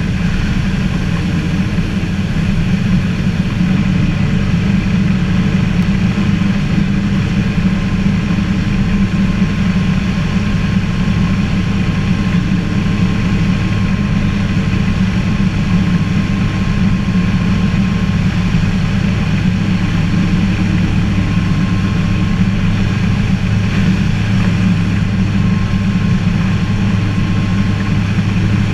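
Ikarus C42B microlight's engine and propeller running steadily on the approach to land, heard from inside the cockpit as a constant drone.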